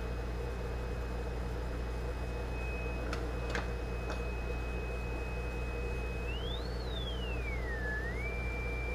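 A steady high test tone from a Zenith 4-B-231 field-coil speaker driven by an audio signal generator through its output transformer. About two-thirds of the way in the pitch sweeps up, then down, then settles back to a steady tone, with three light clicks earlier on and a steady low hum underneath. The tone coming through shows that the repaired primary winding of the output transformer now conducts.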